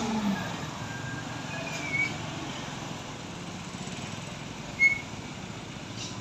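Slow road traffic through a sharp bend: engines of trucks, cars and motorcycles running steadily. Two short high chirps cut through, the louder one near the end.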